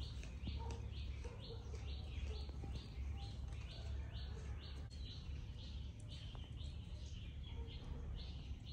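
A bird calling over and over, a short high chirp repeated evenly about twice a second, over a low steady rumble.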